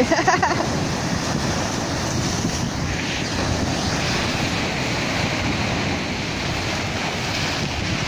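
Surf breaking and washing against driftwood logs at the shoreline: a steady, unbroken rushing, with wind buffeting the microphone.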